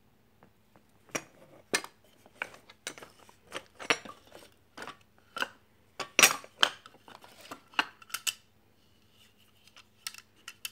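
Old rusty metal hand tools clanking and clinking against one another as they are handled and shifted in a pile, with a dozen or so sharp knocks, the loudest about six seconds in. Near the end there are a few lighter taps and a faint metallic ring.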